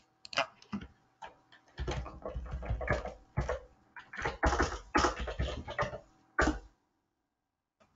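Computer keyboard typing: a few scattered keystrokes, then a fast run of clattering keys from about two seconds in that stops shortly before the end.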